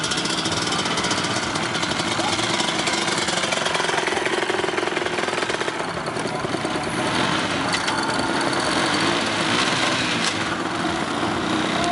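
An ATV engine running hard during a burnout, a steady loud engine noise with the wheels spinning on grass.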